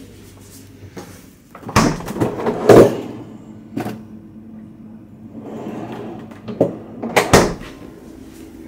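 A refrigerator's door and pull-out bottom drawer being opened and shut: a cluster of knocks and rattles about two seconds in, a soft sliding noise, then a sharp thud about seven seconds in.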